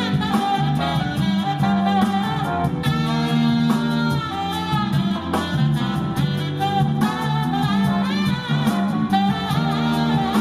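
Live jazz band playing an instrumental passage: horn phrases over a swinging drum kit, with a steady run of sharp strokes through it.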